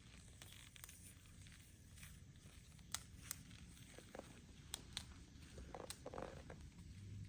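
Faint rustling and scattered light clicks from the cut end of a hemp rope being handled and wrapped to keep it from fraying.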